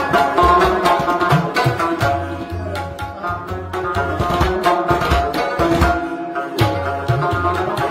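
Background music: a rhythmic drum pattern under a sustained melody.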